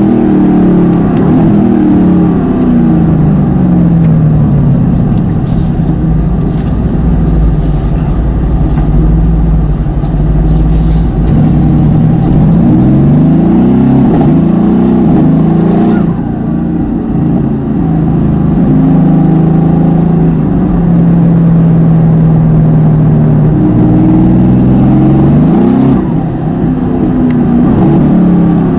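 Mercedes-AMG GT S's twin-turbo 4.0-litre V8, tuned by PP Performance to about 760 hp, revving hard: the engine note climbs, drops and climbs again many times over, with a brief dip about halfway through.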